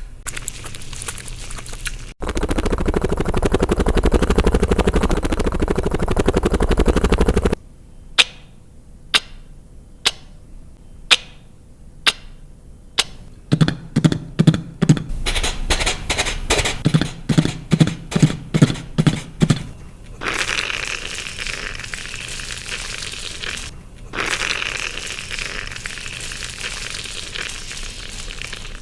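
Beatboxer making foley-style sound effects with the mouth, one after another: a crackle, a loud low rumbling noise, sharp clicks about once a second, a quicker rhythmic run of low pulses and clicks, then long hissing noises.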